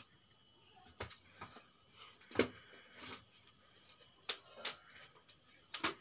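Light knocks and taps, about seven of them spread unevenly across the time, of framed photos being handled and set against a shelf.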